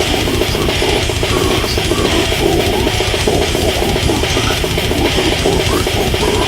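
Brutal death metal: heavily distorted low-tuned guitars over very fast, continuous kick-drum blasting, with no vocals in this stretch.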